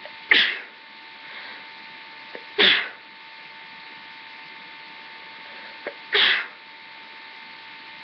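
A person sneezing three times in a row, a couple of seconds or more apart: sneezes brought on by tickling the nose with a rolled-up tissue.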